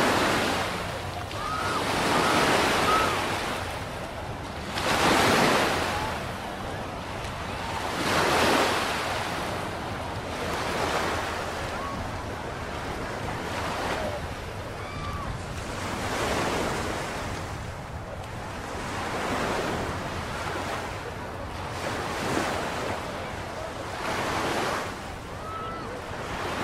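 Small ocean waves breaking and washing up a sandy beach, the surf swelling and falling back every two to three seconds, with wind on the microphone.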